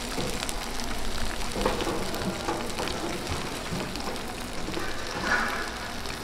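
Egg-battered slices of squid sundae (stuffed squid sausage) sizzling in shallow oil on a flat griddle, with a steady crackle of spattering oil.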